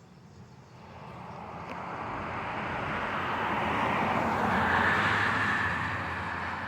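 A passing vehicle: a steady rushing noise that swells from about a second in, is loudest past the middle and eases slightly near the end.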